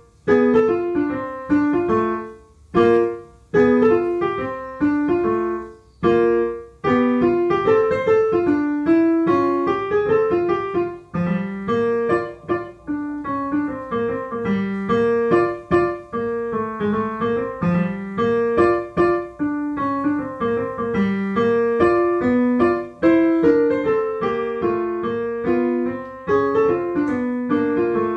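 Solo piano played by hand: a few separate chords with short breaks between them, then, from about seven seconds in, an unbroken flowing run of notes and chords.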